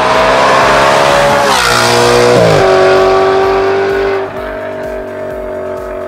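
Audi RS5's V8 engine passing by under acceleration: its note climbs as the car approaches, drops sharply in pitch as it goes past about two seconds in, then settles into a steady lower drone that fades after about four seconds as it pulls away.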